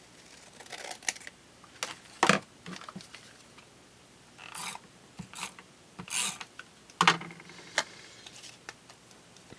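A sheet of patterned scrapbook paper being cut and handled: short rasping swishes of the cut, with scattered clicks and taps from the paper and tools.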